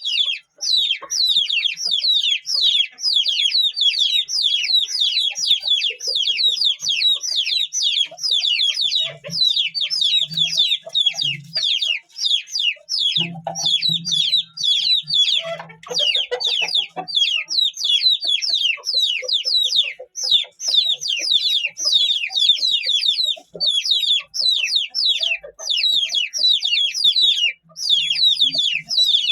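Several Aseel chicks peeping without pause, many high, falling cheeps overlapping each second.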